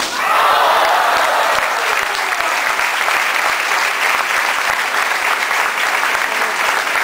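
Spectators clapping loudly and steadily, greeting a men (head) strike awarded as the deciding point. The clapping starts at once, is fullest in the first second or so, then holds even.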